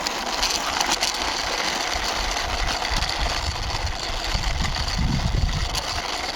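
Plastic wheels of a toy cement mixer truck rolling steadily as it is pushed along by hand, a continuous rumbling scrape.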